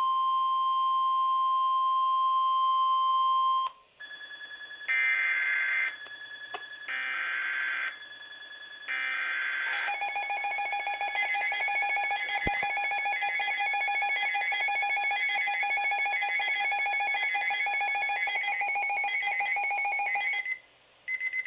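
Emergency broadcast alert tones: a steady beep held for about three and a half seconds, then three short bursts of screeching data noise, then a pulsing multi-tone attention signal over a steady tone for about ten seconds that cuts off suddenly. A single click sounds partway through the attention signal.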